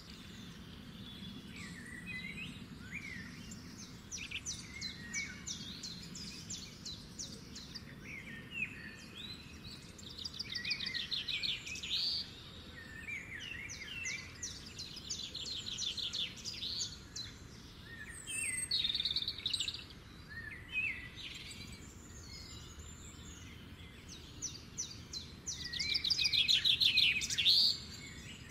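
Small songbirds singing and calling, with short chirps throughout and bursts of rapid trills every few seconds; the loudest trill comes near the end.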